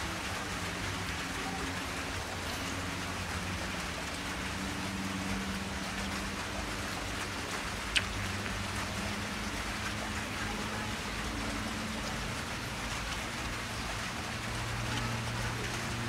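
Steady rain-like hiss with a faint low hum that shifts in pitch every few seconds, and a single sharp click about halfway through.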